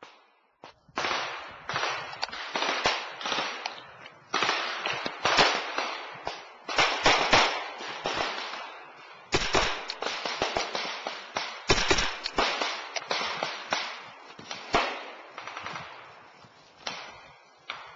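Military rifle gunfire firing blank rounds in an exercise firefight: many single shots and quick runs of shots, overlapping from several weapons, starting about a second in. Each shot echoes off the forest, with short lulls between the volleys.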